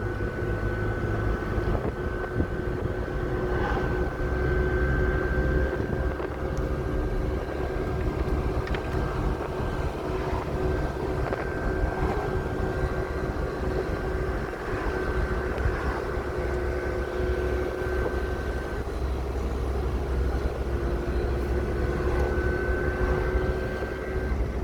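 Steady motor-vehicle running noise: a low rumble with a few held whining tones that drop out briefly and return.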